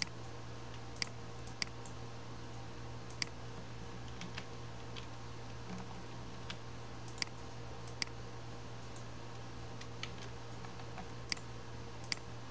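Scattered single clicks of a computer mouse, about ten at irregular intervals, over a steady low hum.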